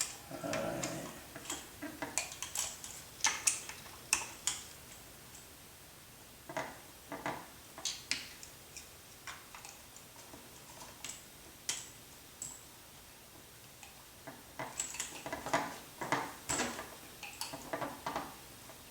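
Irregular small clicks and taps of metal parts and hand tools being handled during motor and pinion fitting on a model helicopter. A flurry of clicks comes in the first few seconds, it goes quieter around the middle, and another flurry comes near the end.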